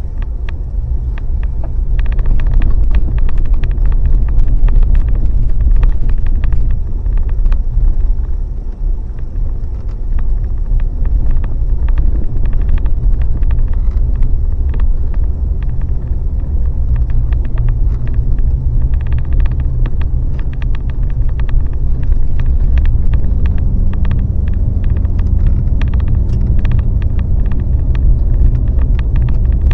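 Inside a moving vehicle: steady low road rumble, with frequent small clicks and rattles throughout.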